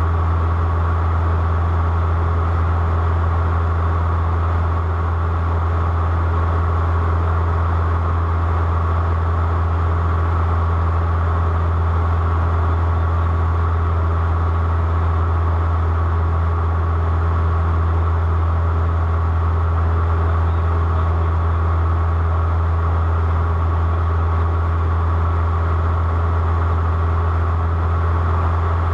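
Airplane engine drone, a constant low hum with a steady higher tone above it and no change in pitch or level.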